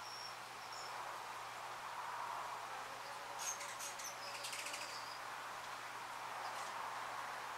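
Small bird giving a few short high chirps, then a quick run of clicky, chattering notes about three to five seconds in, over a steady background hiss.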